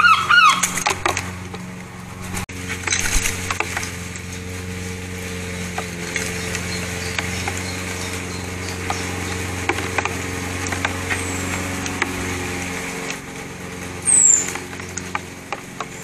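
A run of short pitched calls from jackdaws ends about a second in. Then comes a steady low hum like a distant motor, with scattered faint clicks and one brief, high, falling bird chirp near the end.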